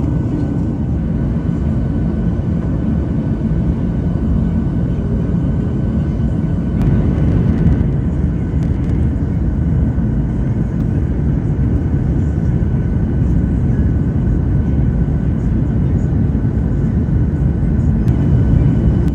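Cabin noise of a Boeing 737-600 on approach with flaps set to 15, heard from a seat over the wing: a steady low rumble of its CFM56 engines and the airflow, with faint steady tones above it. The noise grows a little louder about seven seconds in.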